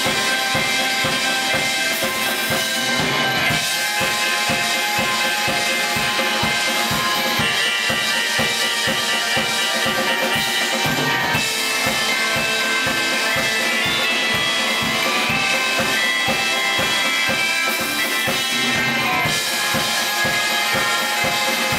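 Live band music: a drum kit keeps a steady kick-drum beat under electric keyboards and sustained melodic tones.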